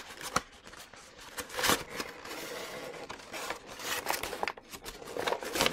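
Crumpled packing paper rustling and crackling as hands dig through it in a cardboard box, with sharper crinkles about a second and a half in and again near the end.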